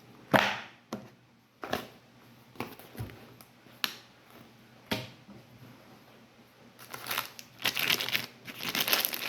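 Handling and rustling sounds from unpacking a pistol case: scattered clicks and knocks, then denser crinkling of packaging from about seven seconds in.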